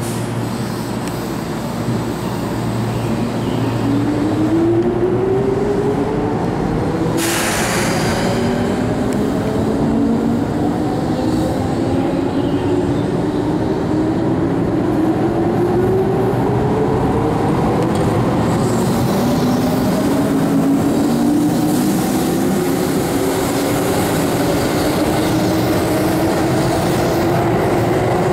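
Keihan electric train accelerating away from the platform: its traction motors give a whine that rises steadily in pitch, several rising tones overlapping, over the rumble of wheels on rail. A short hiss comes about seven seconds in.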